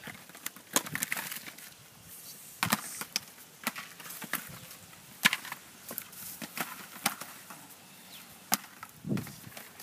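Green coconuts knocking against one another as they are picked up and tossed onto heaps: sharp separate knocks at irregular intervals.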